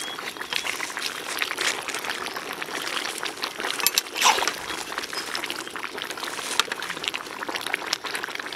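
Chicken legs bubbling and sizzling in a large iron kadai of gravy over a wood fire: a steady hiss dotted with many small crackles and pops, one sharper pop or scrape about four seconds in.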